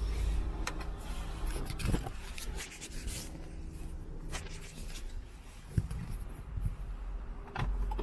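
Handling noise around a parked car: rubbing, scraping and scattered clicks as the phone camera is picked up and carried, with one sharper knock about six seconds in. A low steady hum sits under the first half.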